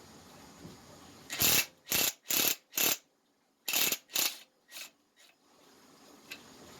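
Ratchet wrench with a 3/8 socket and extension loosening the intake bolts on a Briggs & Stratton opposed-twin engine: short ratcheting strokes in two runs, four strokes and then three.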